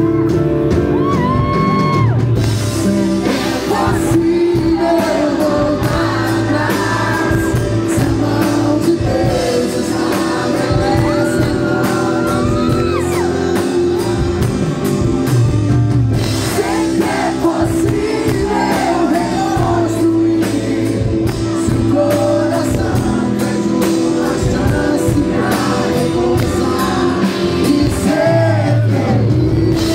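Live band music with singing, played loud through the stage sound system.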